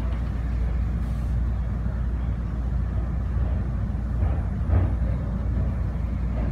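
Steady low rumble of the Incheon Airport Maglev car running along its elevated guideway, heard from inside the cabin, with one brief bump about three-quarters of the way through.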